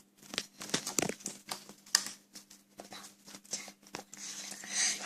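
Sticky slime being squeezed and pulled by hand: an irregular run of small wet clicks and crackles.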